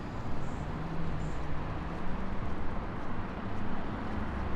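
Street traffic: vehicle engines running with a steady road hum. Two faint, short, high chirps come about half a second and just over a second in.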